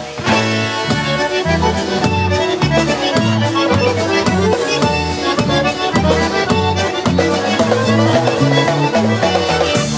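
A polka band playing live, instrumental: piano accordion and concertina carry the tune over an electric bass alternating low notes on the beat and a steady drum beat.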